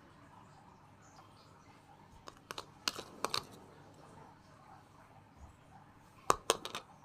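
A few sharp clicks and taps of small hard objects being handled, in two clusters: one about two and a half seconds in, and a louder one near the end.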